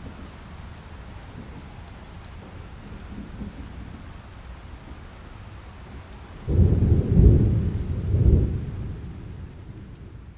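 Thunderstorm: steady rain hiss, then about two-thirds of the way in a sudden loud clap of thunder that rumbles for a couple of seconds and fades.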